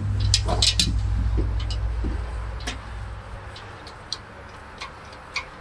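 Hoist chain and the steel differential carrier clinking and ticking as the carrier is lifted free of the axle housing, over a low rumble that fades away about three seconds in. Later the clicks thin out to a few separate ticks.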